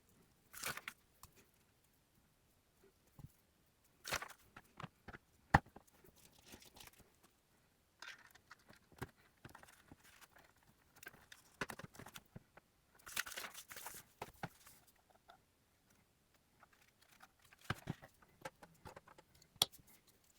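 Hands handling small plastic Lego pieces and packaging: short bouts of rustling and crinkling, with scattered light clicks and one sharper click about five and a half seconds in.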